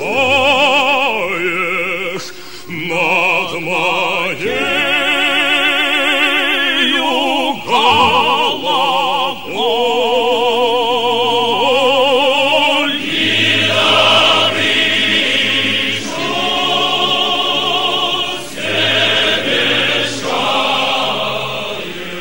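Music: an operatic singing voice with wide vibrato, holding long notes one after another.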